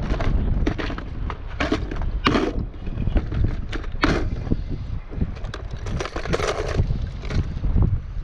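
Clear plastic tackle box being opened and rummaged, with irregular clicks and clatters of the lid and lures knocking against the plastic. A steady low wind rumble on the microphone runs underneath.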